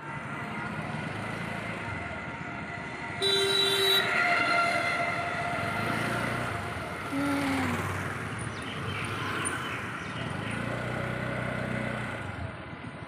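Street traffic heard from a moving motorbike: steady engine and road noise, with a vehicle horn sounding for about a second around three seconds in.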